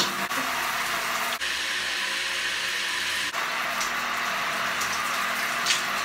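Shower water running in a steady hiss, broken by two very short dropouts.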